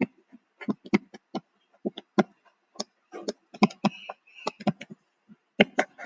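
Stylus tapping and scraping on a touchscreen while handwriting: a quick, irregular run of short clicks and light scratches, several a second.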